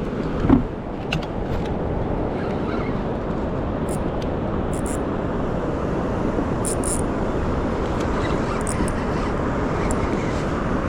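Steady wind noise on the microphone with water sounds, a short thump about half a second in, and a few brief high clicks near the middle.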